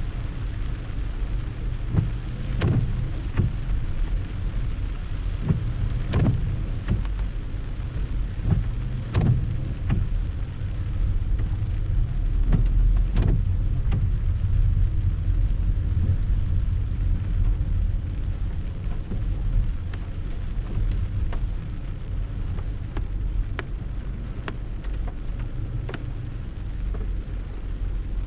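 Rain shower falling steadily, with scattered sharp drops striking close by over a constant low rumble.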